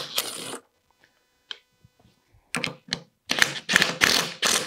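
Cordless screwdriver running in reverse, backing a metal threaded insert out of a wooden board. A short burst comes at the start, then a pause of about two seconds, then a run of loud clattering bursts in the second half.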